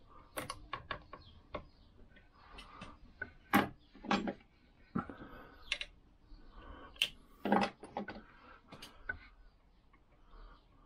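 Circlip pliers and a steel circlip clicking and ticking on the brake lever shaft as the circlip is worked into place, in irregular small clicks with two louder metal knocks, about three and a half and seven and a half seconds in.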